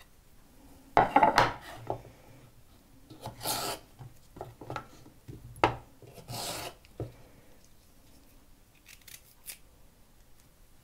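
Short rasping scrapes and light knocks of food prep on a wooden cutting board: chopped onion and garlic pushed off the board into a bowl, then carrots set down and handled on the board. The loudest scrape comes about a second in, and it goes quieter in the last few seconds.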